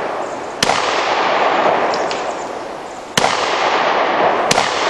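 Three gunshots from a Glock pistol, a second or more apart. Each shot is followed by a long echo that lingers until the next.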